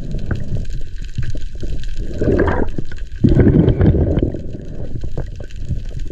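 Seawater sloshing and gurgling around a free diver's camera, swelling in surges a couple of times among small popping sounds.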